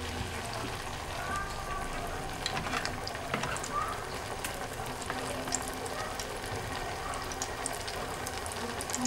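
A battered slice of menjes (okara tempeh) frying in hot oil in a pan: a steady sizzle with many small scattered pops and crackles.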